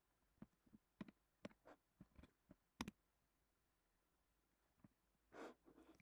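Near silence with faint, irregular clicks of a computer keyboard and mouse, most of them in the first half, and a soft breath near the end.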